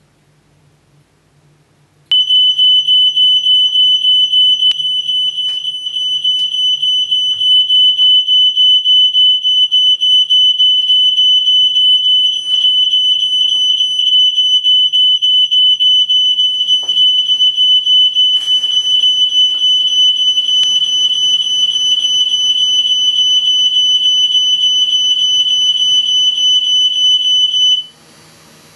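Smoke detector alarm set off by smoke, sounding a loud, high, rapidly pulsing tone that cuts off suddenly near the end. About two-thirds of the way through, a ventilation fan starts with a hum and a steady rush of air, and it keeps running after the alarm stops.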